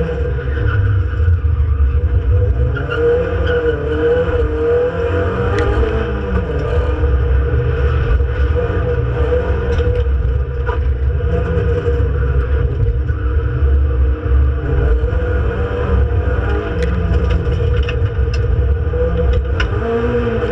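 Renault Clio Sport 2.0 182's four-cylinder engine at racing pace, heard loud from inside the cabin, its revs climbing and dropping again and again through gear changes and braking, with a few sharp clicks along the way.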